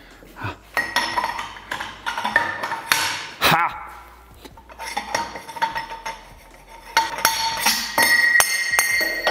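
A freshly lathe-turned steel pipe scraping and clinking as it slides into the hole of a drill press's table bracket, with a steady metallic ring, in two stretches, the second near the end. The sound of a tight metal-on-metal fit.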